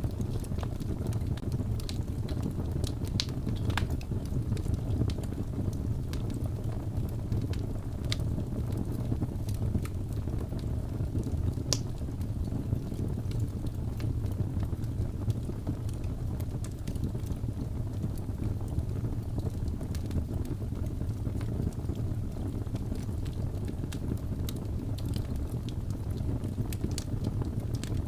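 Wood fire burning with a steady low rumble, broken by scattered sharp crackles and pops, the loudest about twelve seconds in.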